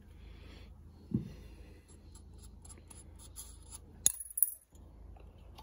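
Hands handling brake booster parts: a soft knock about a second in, a few light clicks, then two sharp metallic clicks just after four seconds in as the pressed-steel booster shell is lifted.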